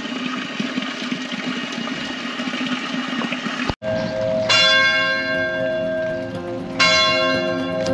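Water running steadily as drinking bottles are filled. After a cut, a church bell tolls, struck twice about two seconds apart, each strike ringing on.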